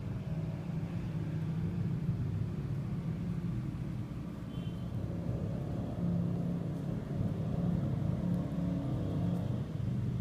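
A motor running with a steady low hum, a little louder from about six seconds in.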